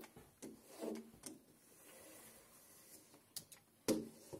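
A 5-inch razor-blade scraper scraping wet window glass, with a soft scraping sound in the middle and a few sharp knocks as the blade meets the frame, the loudest near the end.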